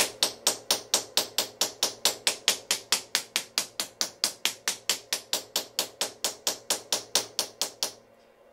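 Ball end of a glass cutter tapping a scored glass pane, quick light taps at an even pace of about five a second, stopping about eight seconds in. The tapping deepens the crack along the score line ahead of the break.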